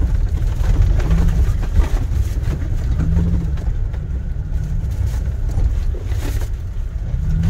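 2022 Toyota Tacoma TRD Pro driving over rough dirt, heard from inside the cab: its V6 engine runs under light load, the engine note rising and falling a little, with occasional thuds as the suspension takes the bumps.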